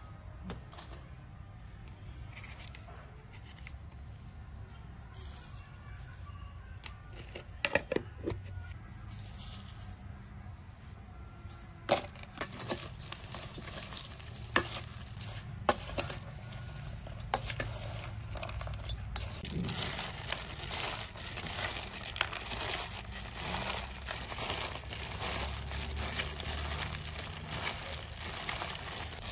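Food preparation sounds: scattered knocks and clicks, then a dense, steady crackling from about two-thirds of the way in.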